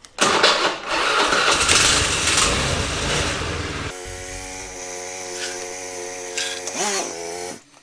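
Honda Today scooter's 49cc four-stroke single-cylinder engine being started: it catches and runs loud and fast for about four seconds, then settles into a steady idle, with a short rise and fall in pitch, before stopping near the end.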